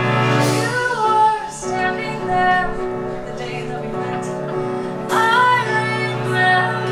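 A woman singing a musical-theatre song into a handheld microphone over live band accompaniment, in phrases, with the strongest sung lines at the start and again about five seconds in while the band holds steady underneath.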